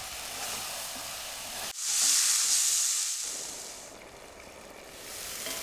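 Chopped onions, tomatoes and curry paste sizzling in a pan on a gas hob as they are stirred with a wooden spoon. About two seconds in, the sound switches abruptly to a louder, high sizzling hiss that fades away over the next two seconds.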